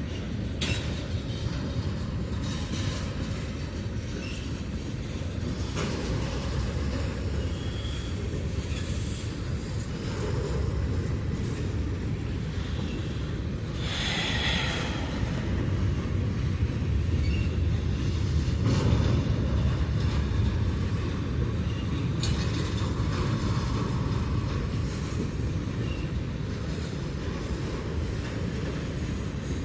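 CSX freight train rolling past at a grade crossing with a steady low rumble of wheels on rail. Scattered clicks come from the wheels over rail joints, and there are brief high wheel squeals, the clearest about halfway through.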